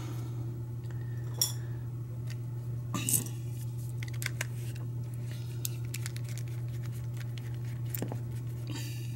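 A few sparse light metal clicks and clinks as an American Lock 1100 padlock is handled, with a tool poked into the side of the lock body and the steel shackle worked loose, over a steady low hum.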